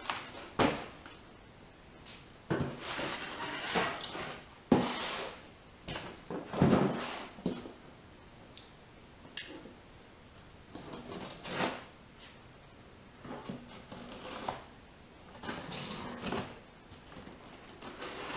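Cardboard boxes being handled and opened with a box cutter, making irregular rustles, scrapes and thumps of cardboard and packing paper.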